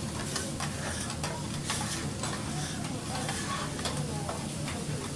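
Food sizzling on a teppanyaki steel griddle while a metal spatula scrapes and taps against the plate in many irregular clicks.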